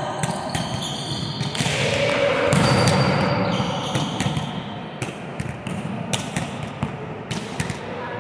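Volleyballs being hit and bouncing on a sports-hall floor: many sharp, echoing smacks at an uneven pace, with a louder spell of hall noise about two to four seconds in.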